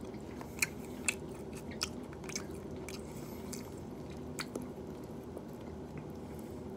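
Scattered small crackles and clicks of a cooked shrimp's shell being peeled apart by hand, over a steady low room hum.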